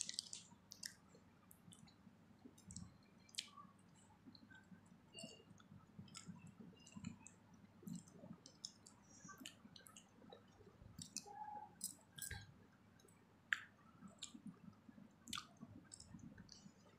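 Faint, wet mouth sounds close to the microphone: scattered lip smacks and tongue clicks as a mouth chews and works a soft, pasty food.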